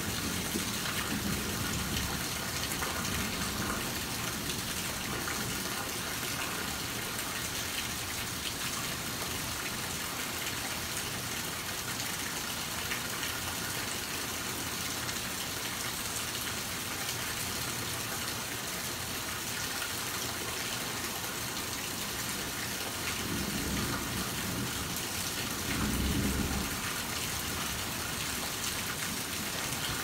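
Steady heavy rain falling on a lawn, an even hiss of drops. A low rumble of thunder swells briefly near the end.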